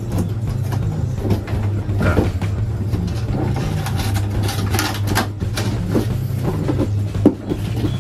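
Scissors snipping through the seal of a cardboard box, with scattered clicks and rustles of cardboard being handled, and one sharper knock near the end. A steady low hum runs underneath.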